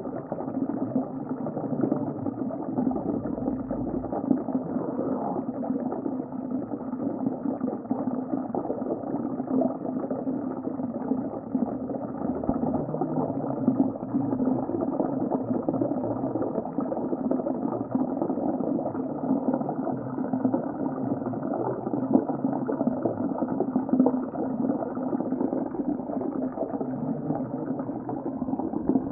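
Underwater ocean ambience: a steady, muffled rush of water with continuous fine bubbling, lacking any high sounds.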